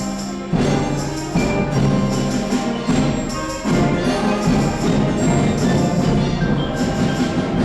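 Orchestral music: sustained chords with a new accented chord struck about every second.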